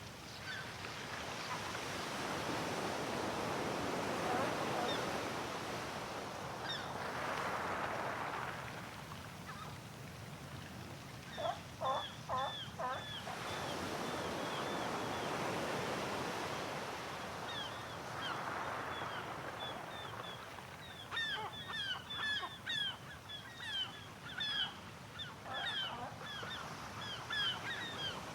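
Sea waves washing ashore in slow swells, with gulls calling over them: a quick run of about five calls around twelve seconds in, then a dense flurry of short, high cries through the last third.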